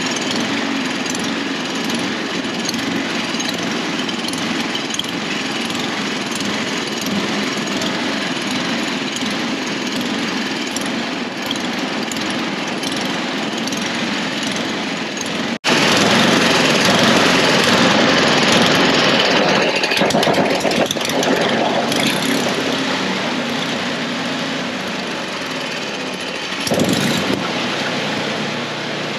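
Small snowblower engine running steadily. It drops out abruptly about halfway through and comes back louder. The owner judges that its carburetor could use a bit of cleaning.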